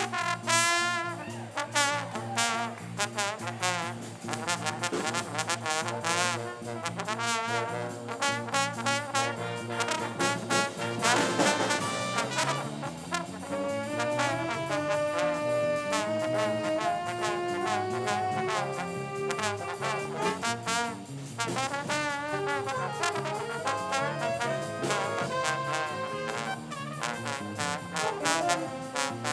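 Music led by brass instruments, trombone and trumpet to the fore, over percussion keeping a beat.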